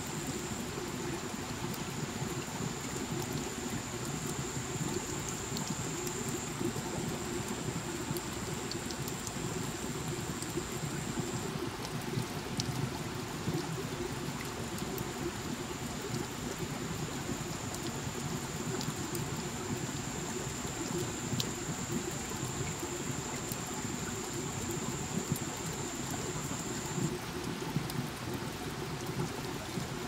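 Water dripping and trickling over wet rock and leaves: a steady wash of water noise with scattered small drop clicks. A thin steady high tone runs alongside, breaking off briefly about midway and stopping a few seconds before the end.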